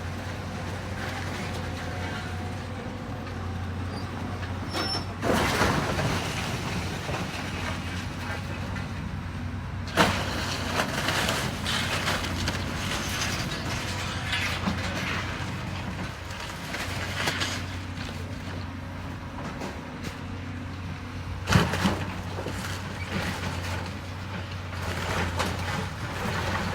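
Heavy demolition machine's engine running steadily while it tears down a building, with sudden crashes of falling debris about 5, 10 and 21 seconds in.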